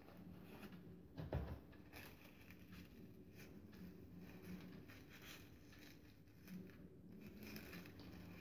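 Faint rustling and crinkling of crepe paper being handled and shaped, with one soft thump about a second in.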